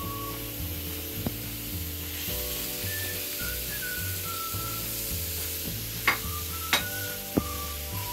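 Chopped onion sizzling in hot oil in a pan, with sharp knocks against the pan: one about a second in, then three in quick succession near the end.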